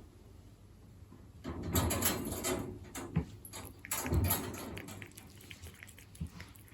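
Cat eating wet food (chicken in jelly) close to the microphone: irregular wet chewing and smacking with small clicks, loudest around two and four seconds in.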